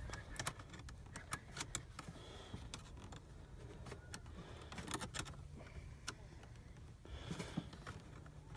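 Flathead screwdriver tightening the clamp that holds a new air filter on the intake: irregular small metallic clicks and ticks as the screwdriver turns and the parts are handled.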